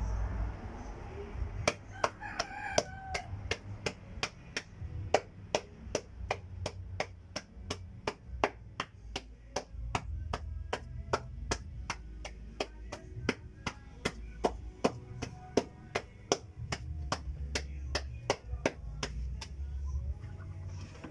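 Wet clay being slapped and patted by hand while a clay cooking stove is shaped: a steady run of sharp slaps, about three a second, that stops shortly before the end. A rooster crows about two seconds in.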